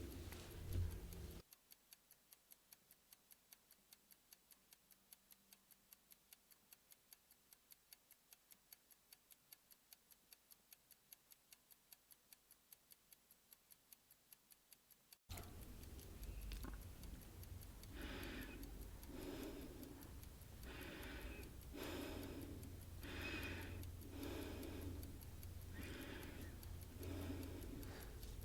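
Clock ticking. First come faint, quick ticks at about four a second. About halfway through they break off and a louder, fuller tick continues at about one a second.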